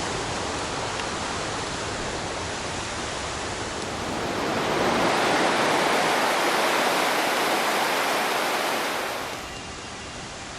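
Turbulent mountain stream rushing down a steep gorge: a steady wash of water noise that grows louder past the middle, then falls off sharply about a second before the end.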